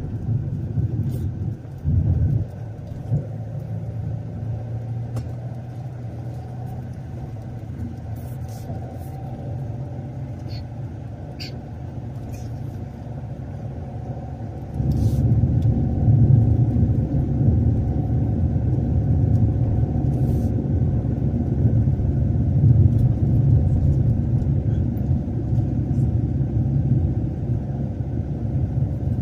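A motor vehicle running: a steady low rumble with an engine hum, which grows louder about halfway through.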